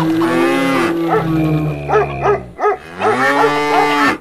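Cattle mooing: a long moo, a few short calls about two seconds in, then another long moo near the end.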